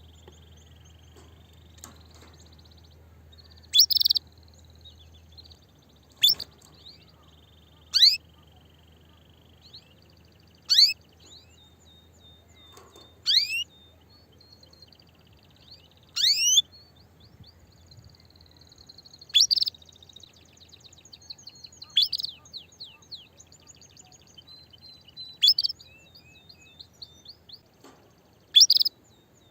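Female canary giving loud, short call notes about every two to three seconds, each a quick sweep falling in pitch, over quieter trills and twittering. A hen's mating call to males, the call of a female ready to breed.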